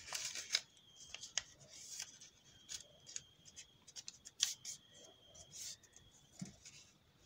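Sheets of construction paper being handled and shifted by hand, with faint irregular rustling and crackling.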